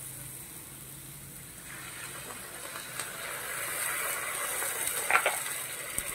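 Water poured into a hot frying pan of sautéed tomatoes, hissing and sizzling as it hits the pan. The hiss swells about two seconds in and eases near the end, with a couple of light knocks.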